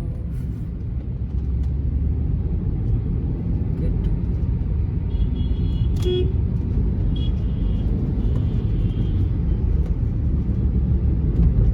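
Steady low rumble of a car's engine and road noise heard inside the cabin while driving, with a few short high-pitched tones in the middle.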